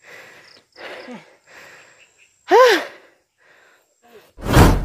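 A cyclist breathing hard, quick regular breaths with a voiced gasp about halfway through, then a loud rumbling burst of noise near the end.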